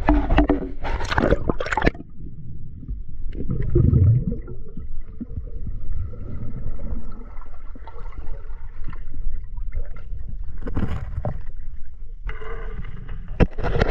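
Water splashing and gurgling around the microphone: a few loud splashes in the first two seconds, then steady low sloshing and gurgling, with louder splashing again near the end.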